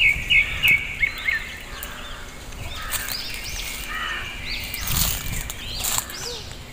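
Small birds chirping and calling over and over, opening with a quick run of about four short chirps, over a low rumbling noise.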